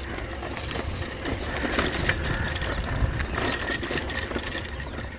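Bicycle being ridden over a rough track: a continuous irregular rattling and clicking over a steady low rumble.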